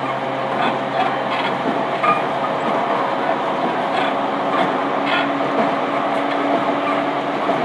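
Running sound inside an equipment-renewed E231-series commuter EMU motor car, picked up from the floor: a steady rumble of wheels on rail with scattered faint clicks from the track, under steady motor and inverter hums. A further steady hum joins about five seconds in.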